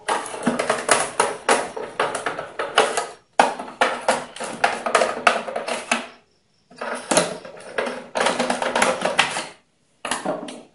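A screwdriver turning screws out of a plastic UPS casing: runs of rapid clicking in four bursts, with short pauses as it moves from screw to screw.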